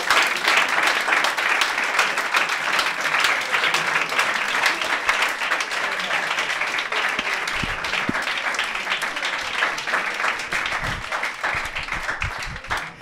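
Audience applauding: a dense patter of many hands clapping that thins out and fades near the end.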